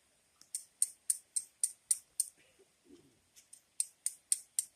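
A run of sharp, scraping clicks, about three or four a second with a short gap near the middle: a steel striker being struck repeatedly against a stone to throw sparks.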